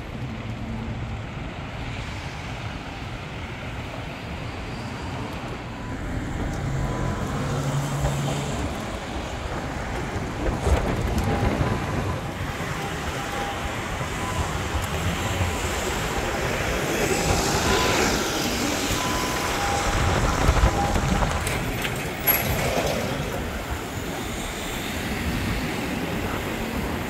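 Road traffic on a busy city street: steady noise of cars and vans driving past, swelling louder a few times as vehicles pass close by.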